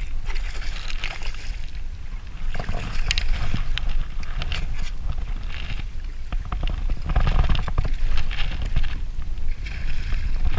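Wind buffeting the microphone in a steady low rumble, with water splashing against a kayak's hull in irregular bursts every second or two on choppy water.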